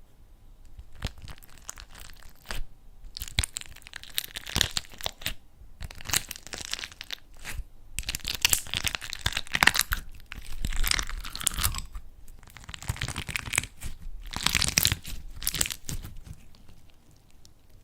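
Slime being squeezed and pressed by hand: dense crackling in repeated bursts of a second or two, with short pauses between them.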